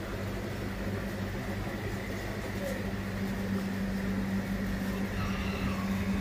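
Aquarium air pumps and filters running with a steady low hum, and a haze of bubbling noise from the air stones.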